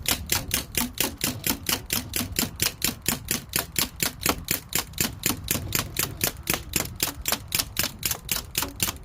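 Umarex MP40 CO2 blowback BB submachine gun firing full-auto: a long, even stream of sharp shots at about six a second that cuts off abruptly at the very end as it runs out.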